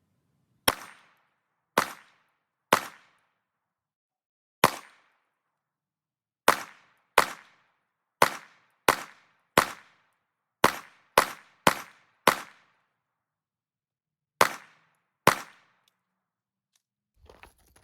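Fifteen single pistol shots from a 9mm Glock, fired one at a time at an uneven pace of roughly one a second, with a couple of longer pauses. Together they empty a full 15-round magazine.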